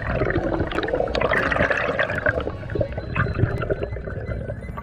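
Water rushing and gurgling around an underwater camera as a diver swims up toward the surface.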